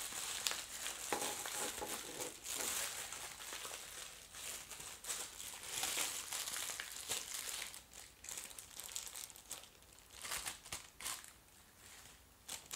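Plastic postal mailer bag crinkling and rustling as it is opened by hand and a small clear plastic bag is pulled out of it, with irregular crackles that grow quieter toward the end.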